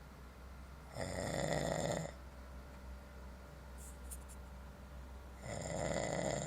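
A man snoring: two loud snores about a second long each, some four and a half seconds apart, one per breath.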